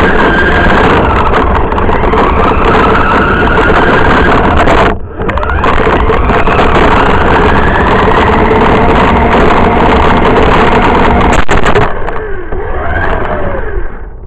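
RC car's motor running close up, heard from on board, its pitch rising and falling with the throttle over a steady rush of wheel and drivetrain noise. It cuts out briefly about five seconds in and winds down, quieter, near the end.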